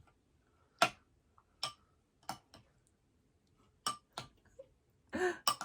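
Metal spoon clinking against a bowl of lugaw (rice porridge), about eight sharp, irregular clinks with a short ring, the first about a second in being the loudest.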